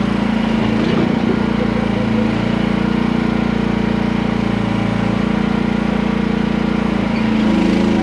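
Small gasoline engine of a QH13R micro mini excavator running steadily; near the end its note steps up briefly, then settles back.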